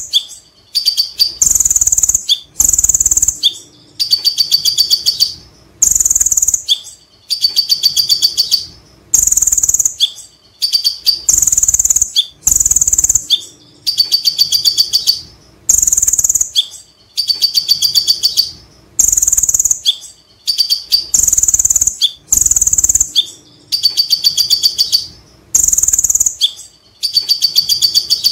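Caged kolibri ninja (konin) sunbird singing its 'ngekek' chatter: short bursts of very fast, high, rattling notes, repeated over and over about every second and a half.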